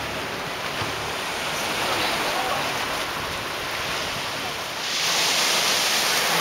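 Sea and wind noise, then about five seconds in, a louder hiss of small waves breaking and washing up over a pebble beach.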